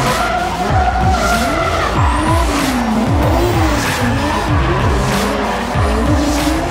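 Tandem-drifting Toyota D1 drift cars (a Mark X, Mark II and Chaser), engines revving up and down over and over as the throttle is worked, with tires squealing and skidding as the cars slide sideways.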